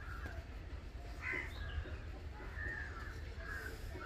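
Birds calling a few times in short calls, over a low steady rumble.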